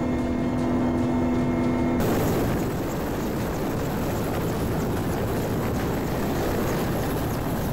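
Helicopter noise: for the first two seconds a steady in-cabin drone of several held tones, then a sudden cut to the louder, even rushing noise of a helicopter on the ground with its rotors turning.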